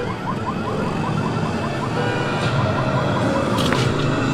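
Fast yelping siren, a rising sweep repeated about five times a second, fading out about two seconds in, over a steady low rumble.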